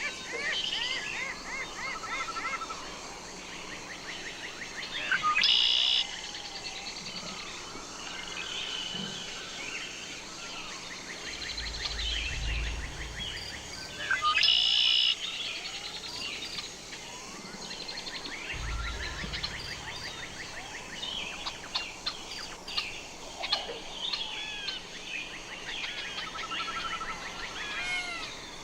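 Common blackbird song amid a chorus of other birds' chirps and trills, with two louder calls and two brief low rumbles.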